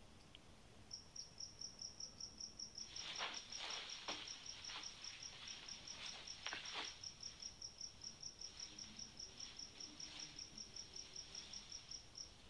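Faint, cricket-like chirping: an even run of short high chirps, about five a second, starting about a second in. A few soft rustles come between about three and seven seconds in.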